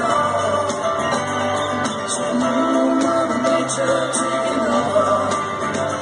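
Live rock band playing, with guitars and singing, heard from far back in the audience.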